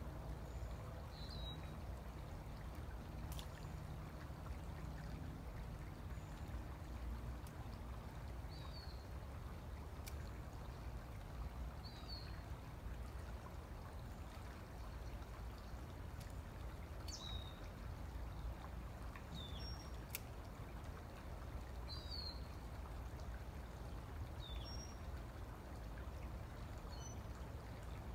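Outdoor ambience: a steady low rush of background noise, with a small bird giving short chirps every few seconds and a few faint clicks.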